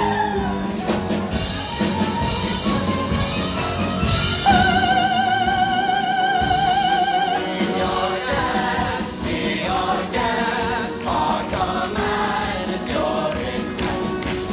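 A group of singers performing a show tune over orchestral backing music. About a third of the way in, one high voice holds a long vibrato note for about three seconds.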